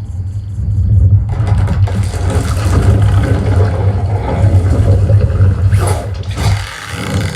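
Film trailer soundtrack played through Edifier R1280DB active bookshelf speakers: loud cinematic sound effects over a heavy, steady low rumble, with a sharp hit about six seconds in.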